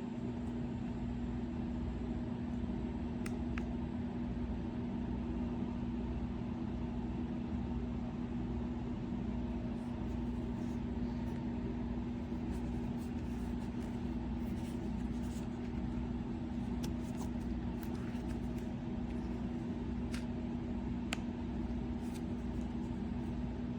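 A steady mechanical hum with one constant mid-low tone over a faint, even low pulsing, with a few light clicks scattered through it.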